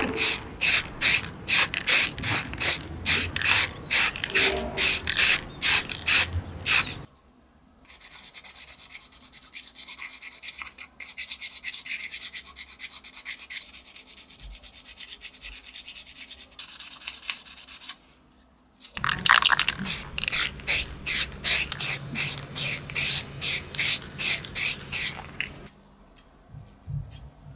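Waterproof abrasive paper rubbed by hand over a metal model car body shell, sanding through grey primer. Brisk, even sanding strokes come about two to three a second, then a stretch of lighter, quieter rubbing, then brisk strokes again. A few small clicks sound near the end.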